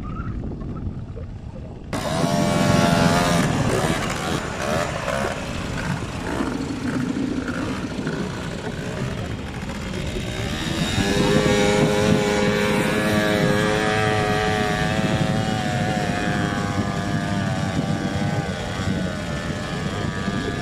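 Quad bike (ATV) engine running hard and revving, its pitch rising and falling with the throttle as it climbs and turns; louder from about two seconds in.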